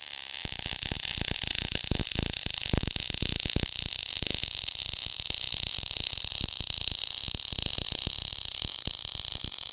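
MIG welding arc running a bead: a steady hiss with dense, irregular crackling and spatter. The torch is travelling too fast along the joint.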